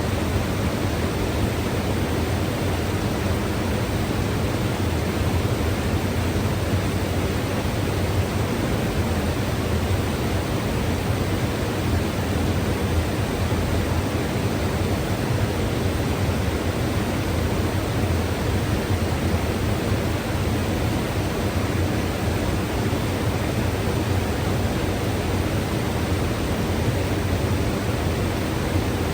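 A mountain river rushing in a steady, unbroken roar of water, heaviest in the low end.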